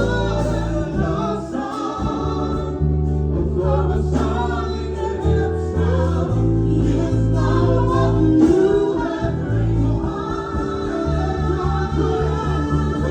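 Live gospel praise music: a choir and voices singing over a band with a steady beat and a heavy bass line.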